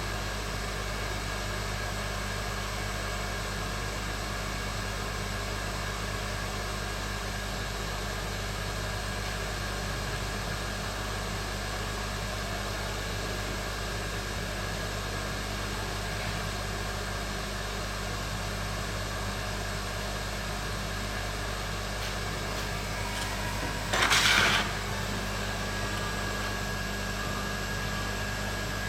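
Hot air rework station blowing steadily, a constant fan-and-air hiss with a faint hum. A brief louder burst of noise cuts in once near the end.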